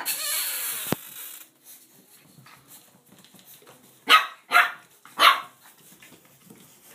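Six-week-old Boston Terrier puppies at play, giving three short yapping barks in quick succession about four to five seconds in. A loud burst of noise lasting about a second comes at the start.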